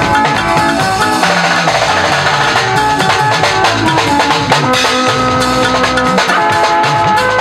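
Live band music: a drum kit keeps a steady beat under sustained keyboard chords from a Yamaha keyboard, with electric guitars.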